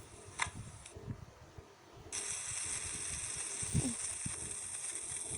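A few light clicks and soft taps, then about two seconds in a steady high hiss starts and holds.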